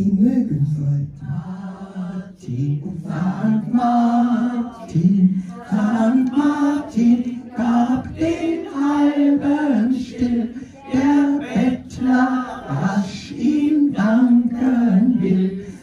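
A small group of elderly women and men singing a German St. Martin's song together, unaccompanied, in phrases with short breaks between lines.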